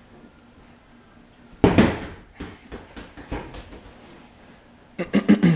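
A soccer ball kicked and striking hard in a small basement room: one loud bang about one and a half seconds in, then a few lighter knocks of the ball bouncing and being tapped, and a quick flurry of knocks near the end.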